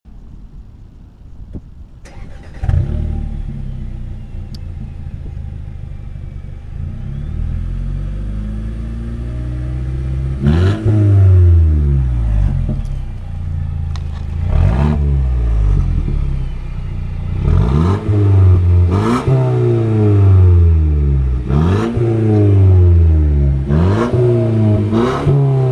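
2014 Mercedes-Benz CLA 250's turbocharged 2.0-litre four-cylinder, its exhaust with the muffler deleted, starting warm and catching about two and a half seconds in, then idling. From about ten seconds in it is revved in a series of quick blips, each rising sharply in pitch and falling back, coming closer together near the end.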